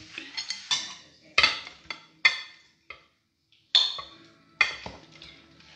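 Cutlery clinking against a plate: a series of sharp knocks, each ringing briefly, with a short pause about three seconds in.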